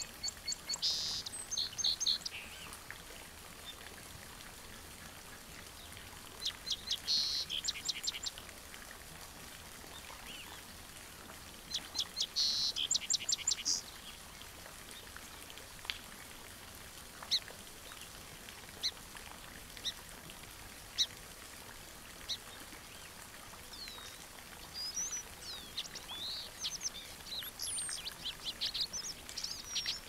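Songbirds calling: a rapid phrase of quick high notes is repeated three times, about every six seconds. Scattered single chirps follow, then a busier run of varied chirps and calls near the end, over a faint steady outdoor hiss.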